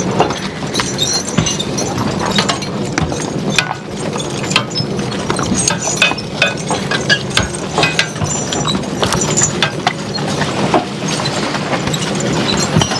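Horse-drawn wagon jolting along a rough woods trail behind a draft horse team: an irregular clatter of knocks and creaks over a steady rolling rumble.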